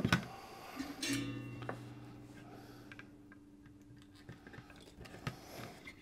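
A short guitar chord plucked about a second in and left to ring out, fading slowly. A few faint clicks come near the end.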